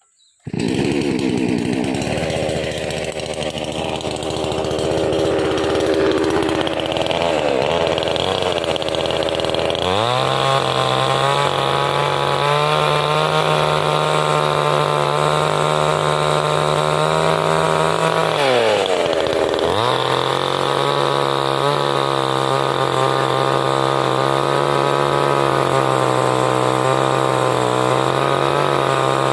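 Two-stroke chainsaw running at lower, uneven revs, then held at a high steady speed from about ten seconds in while cutting tree wood. It eases off briefly about two-thirds of the way through, then goes back up to full speed.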